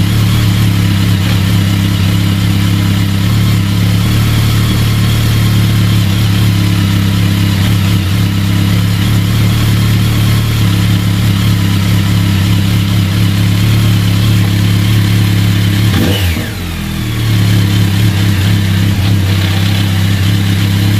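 BMW K1200 GT inline-four engine idling steadily at tick-over, with the clutch rattle that a worn cush drive in the clutch basket is taken to cause. The note dips briefly about three-quarters of the way through, then settles again.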